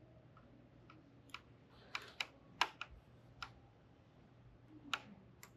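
Light, scattered clicks and taps of hands working thread through the plastic thread guides of a Pfaff HobbyLock 2.5 serger while threading its upper looper. They are faint and irregular, about eight in all, most of them in a cluster between one and three and a half seconds in, with two more near the end.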